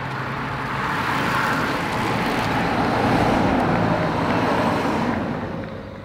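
Race convoy car passing close on a road: engine and tyre noise swell and then fade away near the end, over a steady low engine hum.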